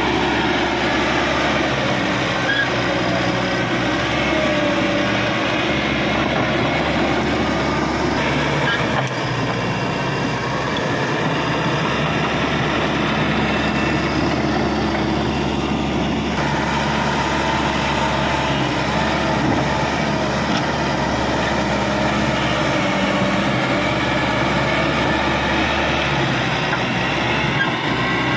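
Caterpillar D5K XL crawler bulldozer working, its diesel engine running steadily under load along with the metallic noise of its steel tracks.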